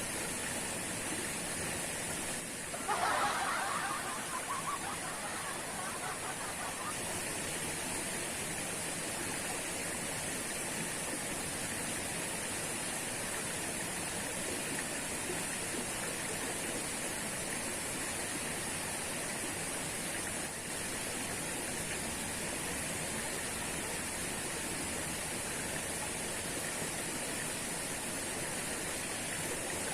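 Waterfall rushing as a steady, even roar of falling water. About three seconds in, a brief louder sound rises over it and fades within a few seconds.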